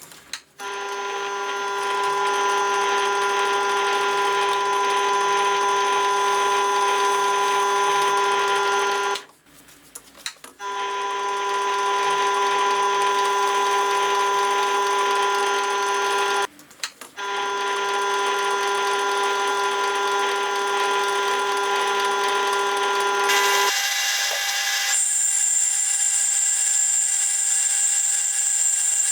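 A small electric power tool running with a steady whine. It stops briefly twice and starts again, and near the end it switches to a higher-pitched whine.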